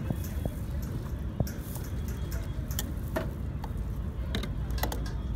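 Steel tongs clicking against a steel container as pineapple pieces are lifted out, a few scattered clicks over a steady low background rumble.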